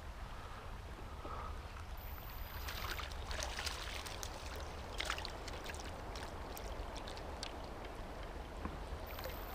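Faint running river water, with a flurry of splashes about three to five seconds in as a hooked brown trout thrashes at the surface before being netted.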